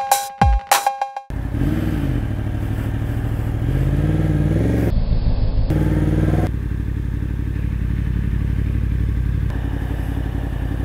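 Electronic music with drum-machine hits for about the first second, then a 2015 Yamaha R1's inline-four engine running on the road, its pitch rising and falling with the throttle over the next few seconds before it settles into a steadier run.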